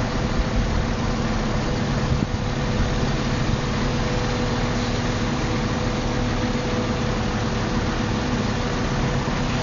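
Forklift running steadily as it creeps forward at low speed: a constant engine hum with a steady tone riding over it.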